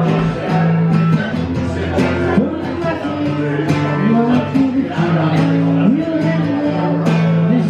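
Music: acoustic guitar strummed in a steady rhythm over sustained low bass notes, in an instrumental passage between sung lines of a country-style song.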